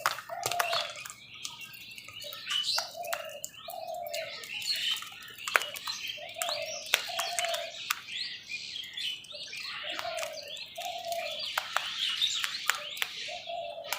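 Crows calling, a short caw every second or two, over a busy mix of higher bird chirps and sharp clicks.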